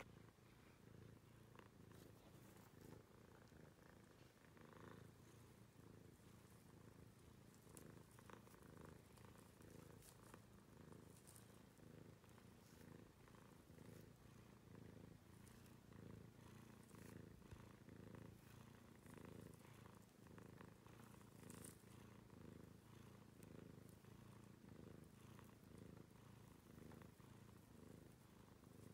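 Domestic cat purring softly and steadily while being massaged, a sign of contentment, with occasional faint rustles of its fur being rubbed.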